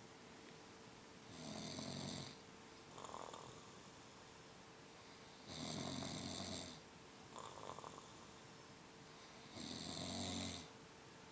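Deep, rattling snoring from a sleeper: three long, loud snores about four seconds apart, each followed by a shorter, softer breath out.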